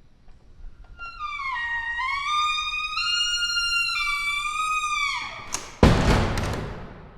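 Old wooden door creaking, a long high squeal that wavers and steps up and down in pitch for about four seconds before sliding down and dying away. A loud thump follows near the end and fades out over about a second.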